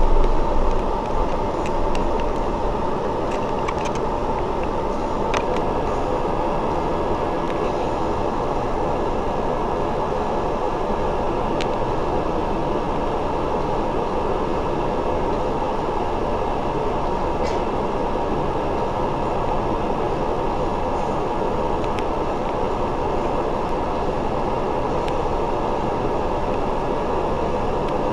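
Steady drone of a double-decker bus heard from inside on the top deck, its engine running with a constant hum and a few faint clicks and rattles. It is louder for the first second or so, with a low rumble easing as the bus slows, then holds level.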